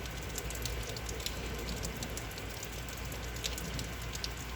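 Heavy rain falling steadily in a storm, a constant hiss with scattered drips and splashes ticking through it.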